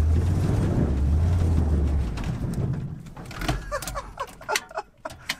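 Truck engine running, heard from inside the cab, then cutting out about two seconds in. After it stops comes a run of sharp clicks and short squeaks.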